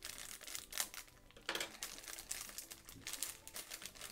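Plastic snack-cracker pouch crinkling and crackling as it is worked open by hand: a dense run of sharp crackles.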